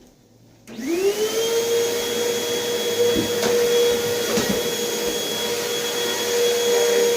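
A vacuum cleaner is switched on less than a second in. Its motor whine rises quickly in pitch, then settles and runs at a steady pitch.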